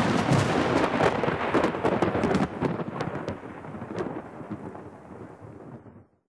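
Thunder in a storm: a loud rolling rumble with many sharp crackles, strongest at the start and dying away over about six seconds before cutting off.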